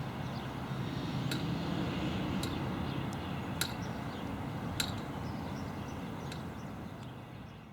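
Outdoor ambience: a steady low rumble with five short, sharp chirps spaced about a second apart, fading out near the end.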